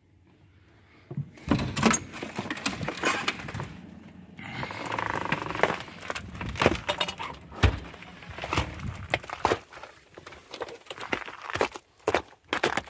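Irregular crunching, cracking and knocking of footsteps on ice-crusted snow, starting about a second and a half in.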